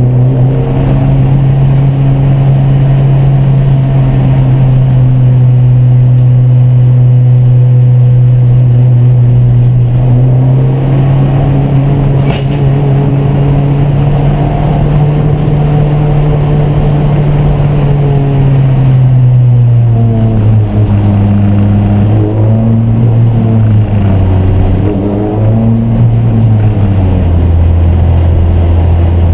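Race car engine running hard at a steady pitch for most of the stretch, then dropping in pitch and rising and falling a few times before settling lower near the end.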